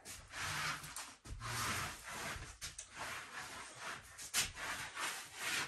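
Rubbing and scraping noises in a series of swishing strokes, with a single sharp knock about four and a half seconds in.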